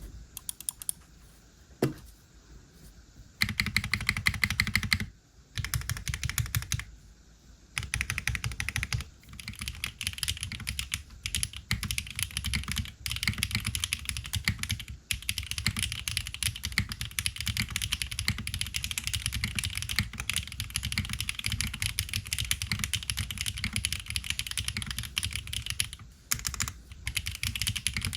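Typing on a FROG MINI HHKB-layout custom mechanical keyboard with HMK Candy Red switches and GMK Blue Samurai keycaps: rapid key clacks, in short bursts over the first several seconds, then steady fast typing with only a brief pause near the end.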